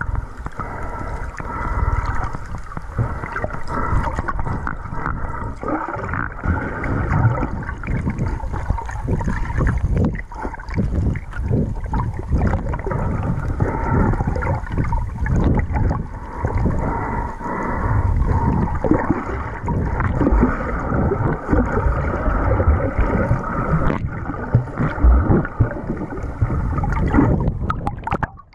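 Muffled underwater water noise picked up by a camera held underwater while snorkeling: churning, gurgling water movement with irregular low thumps and knocks, all dull and bass-heavy with little treble.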